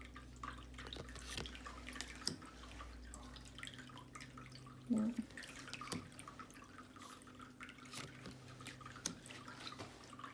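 Tarot cards handled one by one: soft, irregular clicks and taps of card stock as the cards are flipped through by hand.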